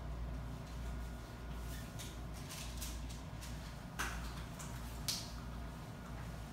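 Steady low room hum, with two short sharp clicks about four and five seconds in.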